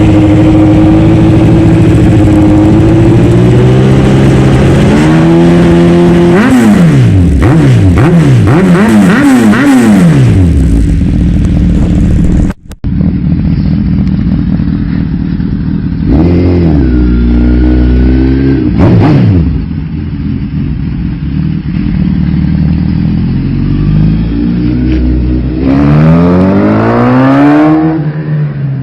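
Suzuki GSX-S1000F's inline-four engine through an M4 GP full exhaust system, idling and being revved in quick throttle blips. It revs several times in a row before a cut, then blips twice more after it.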